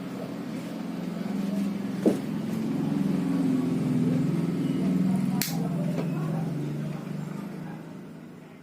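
36-inch Mikolite mini ceiling fan running with a steady low motor hum, with a sharp click about two seconds in and another about five and a half seconds in. The hum swells in the middle and fades away near the end.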